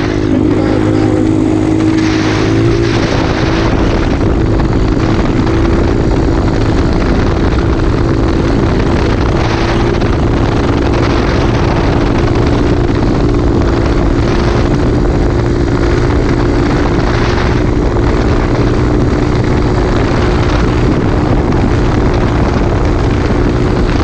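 Mini trail bike engine running at a steady cruising speed while riding, with a brief pitch shift about two to three seconds in. Heavy wind buffeting on the camera microphone runs over it.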